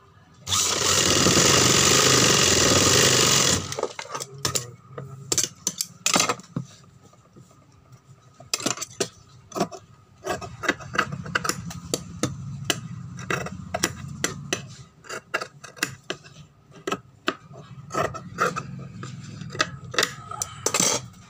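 Industrial sewing machine running at speed for about three seconds, then stopping. After that, tailor's scissors snipping and cutting through cotton fabric, a long run of sharp clicks.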